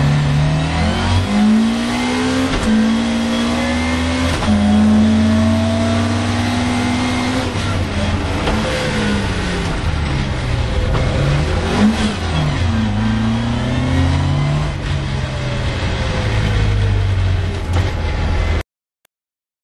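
Mk2 Ford Escort engine driven hard, heard from inside the cabin. The revs climb and drop repeatedly as it is worked up and down through the gears and off and on the throttle, with a run of quick dips in the middle. The sound cuts off suddenly near the end.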